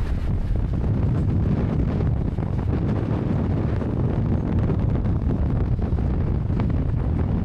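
Wind buffeting the microphone on a moving motorcycle, a steady low rumble of wind and ride noise.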